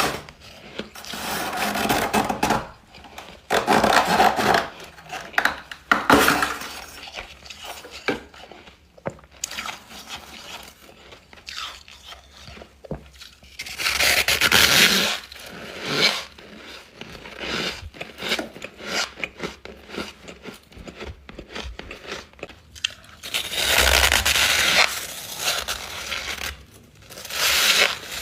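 Frosty freezer ice chunks being bitten and chewed close to the microphone: irregular squeaky crunches, with the loudest bites a few seconds apart and quieter crackling chews in between.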